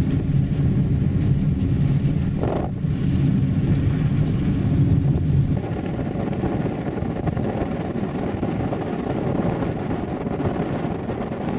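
A car driving: steady engine hum and road noise from inside the cabin. About halfway through the hum drops back and a rougher rush of wind and tyre noise takes over as the car runs along a dirt road.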